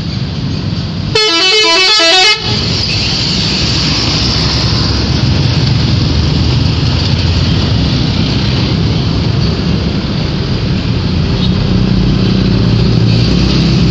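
Telolet horn of a Garuda Mas bus playing a quick run of stepped musical tones for about a second, near the start. Then a steady rush of vehicle engine and road noise, with the low engine rumble growing near the end.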